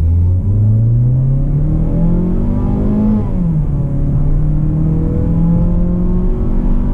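Mazda CX-30's 150 hp four-cylinder petrol engine at full throttle, accelerating hard from a standstill and revving up to about 6500 rpm. The engine note climbs, drops sharply about three seconds in as the six-speed automatic upshifts, climbs again, and drops with another upshift near the end.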